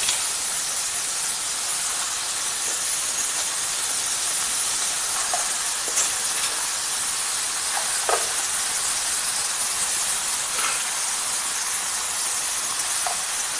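Raw chicken pieces sizzling on hot oil and fried onion-tomato masala in a frying pan, just added: a steady hiss with a few faint crackles.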